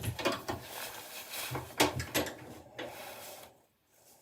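Light handling noises: a few soft knocks and rubs as things are moved about, dying away to near silence about three and a half seconds in.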